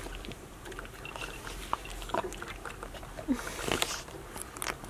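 A dog chewing a piece of roasted sweet potato: a scatter of small wet clicks from its mouth, with a louder click about three-quarters of the way through.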